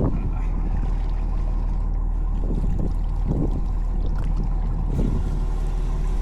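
Fishing boat's engine running steadily, with a few low swells of noise over it every second or two.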